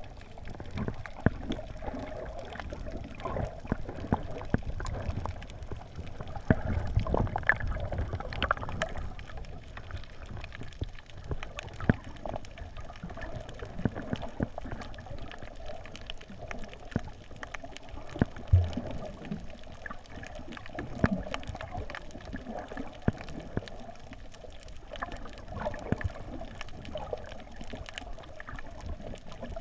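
Muffled motor hum and rumbling, crackling wind buffeting picked up by a GoPro in its housing on a flying quadcopter, with a wavering hum and many small clicks.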